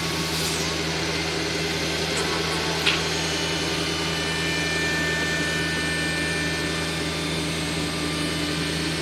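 Steady drone of running workshop machinery with a low hum, and a single light click about three seconds in.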